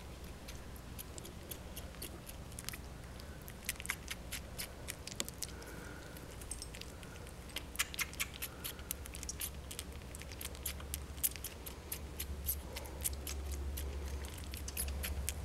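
Kitten suckling on a dog's belly: irregular small clicks and smacks of sucking, over a low steady rumble that grows stronger near the end.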